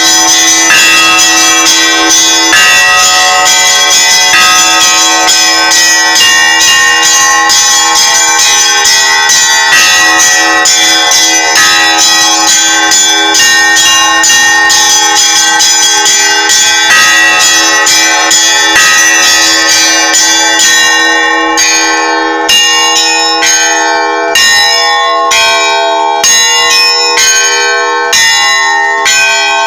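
Russian Orthodox church bells ringing a festal zvon: many bells of different pitches struck in a rapid, overlapping pattern. About two-thirds of the way in, the strikes come more separately, with short breaks in the high ringing between them.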